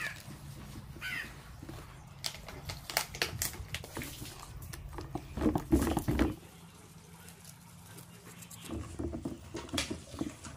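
A crow caws twice near the start, short falling calls. Then come irregular sharp clicks and crackles, loudest about five to six seconds in.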